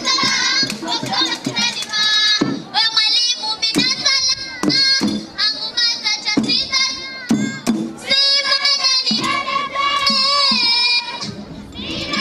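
Children's voices singing a song together, with sharp percussion beats keeping time and a short break in the singing near the end.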